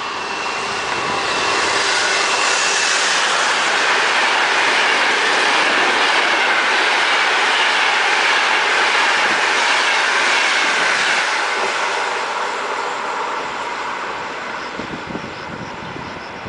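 Intercity passenger train with an electric locomotive passing through a station: a steady rush of wheels on the rails as the coaches go by, with a thin high whine in the first few seconds. It grows loud within a couple of seconds, holds, then fades steadily over the last few seconds as the train draws away.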